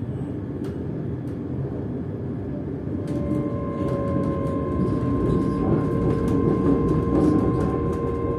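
British Rail Class 385 electric multiple unit heard from inside the carriage: steady electric whine from the traction equipment over the rumble of the running gear. About three seconds in a second, lower whine joins and the rumble grows louder, with a few sharp clicks.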